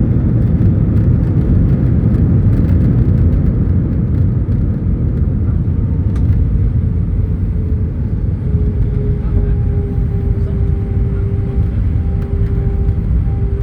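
Jet airliner cabin noise during landing: a loud, steady low rumble that eases slightly, with a faint steady tone coming in about six seconds in.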